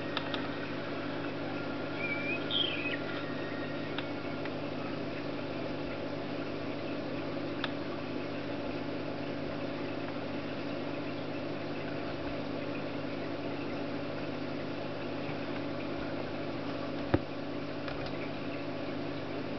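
Steady low hum of a running Samsung NB30 netbook, with a few faint clicks and one sharper click near the end. A brief chirp comes a couple of seconds in.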